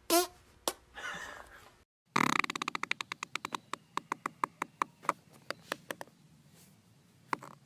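A short fart with a wavering pitch, then a sharp run of clicks or taps that starts fast and slows to a few a second before dying away, with one last click near the end.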